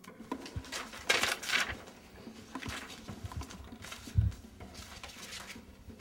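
Paper rustling as pages of a booklet are leafed through and handled, in uneven bursts, with a dull thump about four seconds in.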